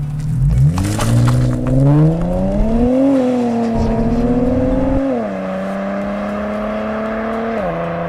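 Infiniti Q50 with a muffler-delete exhaust, heard from behind as it launches from idle and accelerates away hard. The exhaust note climbs sharply about half a second in, with rasping noise over the first couple of seconds, then rises again with upshifts at about three and five seconds. After that it settles into a steadier, quieter tone that steps down once more near the end as the car moves off.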